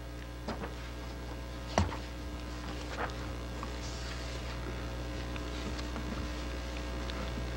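Steady low mains hum with faint room tone, broken by a few light clicks and one sharper knock about two seconds in.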